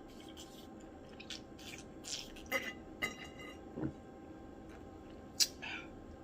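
Faint wet mouth sounds: a handful of small clicks and smacks scattered over several seconds.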